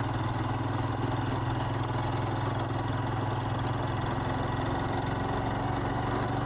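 Royal Enfield Himalayan motorcycle's single-cylinder engine running steadily, with no change in pace.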